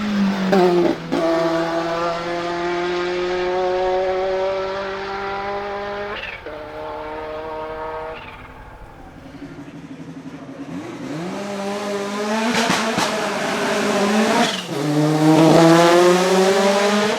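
Renault 5 Maxi Turbo SuperProduction's turbocharged 1.4-litre four-cylinder race engine accelerating hard through the gears. Its pitch climbs and then drops at each upshift, about a second in, around six seconds in and again near the end. It eases off briefly in the middle, and as it pulls again a quick cluster of sharp cracks comes from it.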